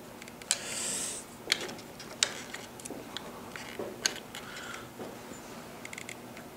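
Small scattered clicks and taps of a screwdriver and hands working on a motorcycle's handlebar master cylinder clamp and switch housing, a sharp tick every second or so, with a brief rustle about a second in.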